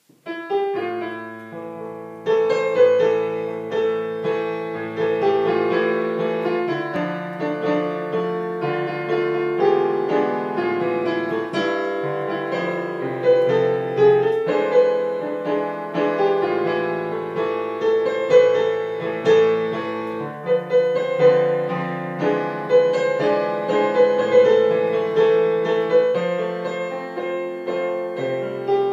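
Digital piano played with both hands: a busy melody over a steady bass line. It starts softly and becomes louder about two seconds in.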